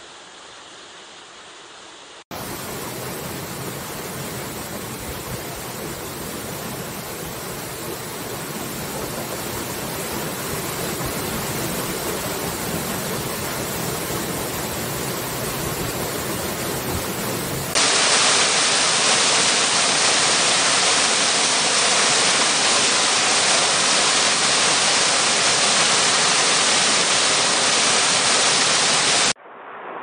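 Waterfall rushing: a steady noise of falling water. It jumps suddenly louder a little after two seconds in, and again past the halfway mark into a brighter, hissier rush, as one recording gives way to another.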